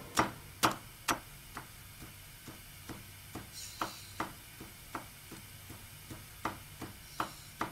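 Kitchen knife chopping a red onion on a wooden cutting board, in steady strokes about two a second; the first few strokes are louder, the rest fainter.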